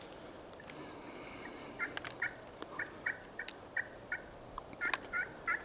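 Wild turkey calling: a run of short, sharp clucking notes, about two or three a second, coming closer together near the end.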